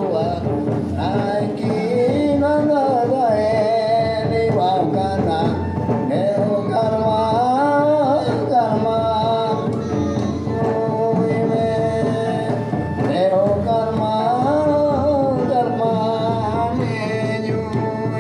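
Santali Karam folk song: voices singing a winding melody over hand drums beating a steady rhythm.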